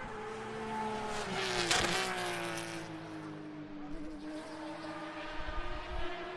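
GT Le Mans race car passing at speed, its engine note building to a peak about two seconds in and dropping sharply in pitch as it goes by. The note then carries on more quietly.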